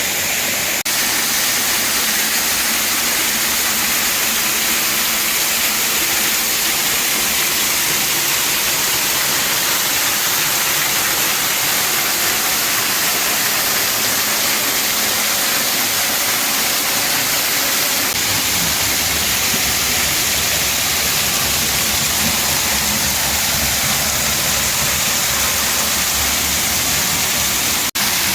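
Waterfall water falling and splashing in a steady rush, with a deeper rumble joining about two thirds of the way through.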